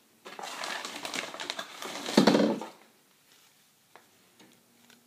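Crinkly plastic packaging being handled, a dense rustling crackle for about two and a half seconds that is loudest near its end, followed by a couple of light clicks.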